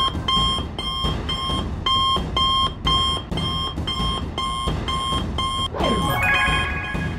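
Smartwatch distress-call alert: a string of short electronic beeps, about two a second, signalling a call for help. Near the end the beeping stops and a falling swoosh leads into a short chime.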